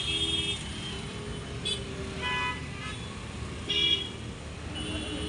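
Stop-and-go traffic on a flooded street: a steady low rumble of engines with several short vehicle horn toots, the loudest about four seconds in.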